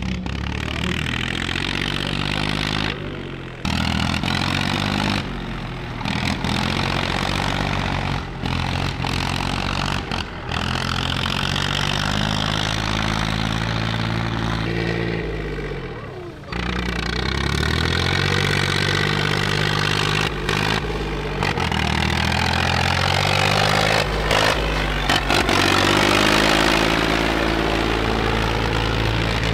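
Diesel tractor engines running hard and revving as they pull through soft mud, the engine note rising and falling. The sound changes abruptly several times where the recording is cut.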